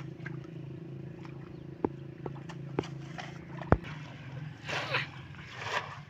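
Floodwater being scooped by hand and thrown over a mud bund: a few sharp clicks, then a splash about every second near the end as each handful of water is flung across. A steady low hum runs underneath until about two-thirds through.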